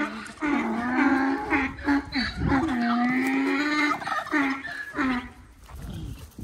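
A donkey braying in long drawn-out calls while a dog barks at it in short yaps. The calls fade out about five and a half seconds in.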